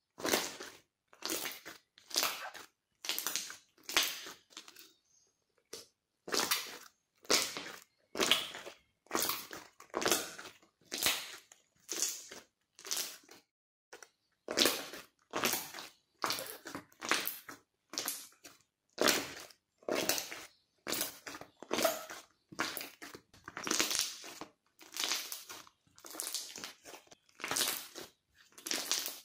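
Mochi-texture slime being squeezed and pressed by hand, giving a short squishing sound with each press. The presses come about once a second, with brief pauses about a fifth of the way in and near the middle.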